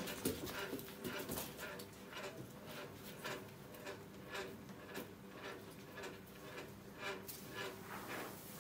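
Irregular soft clicks and scuffs from a newborn filly and her mare moving in the stall while the filly is guided to nurse, over the steady hum of an electric fan.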